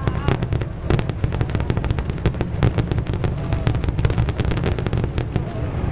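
Aerial fireworks display going off in a dense barrage: rapid bangs and crackles, several a second, thinning out just before the end.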